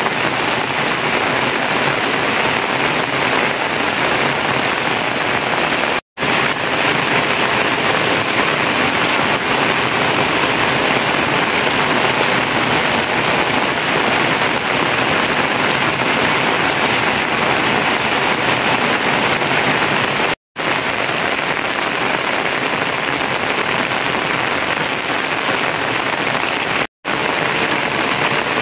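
Steady rain falling, an even hiss, broken three times by a brief dead gap.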